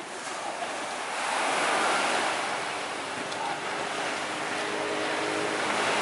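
Small waves breaking and washing up on a sandy shore: a steady surf rush that swells about two seconds in.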